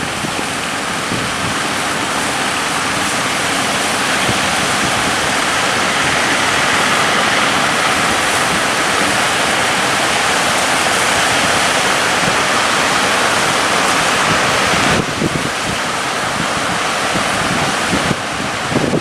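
Steady rush of wind and rough sea water around a boat in big waves, with wind noise on the microphone. It eases a little about fifteen seconds in.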